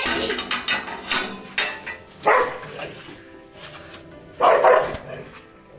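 Rottweiler barking twice, loud and short, about two seconds apart, over background music.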